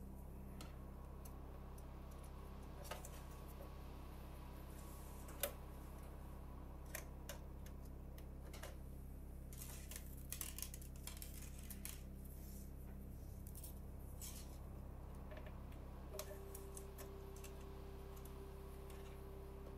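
Sparse small clicks and taps of component leads and wires being fitted into an electronics lab kit board, the sharpest about five and a half seconds in, over a steady low hum.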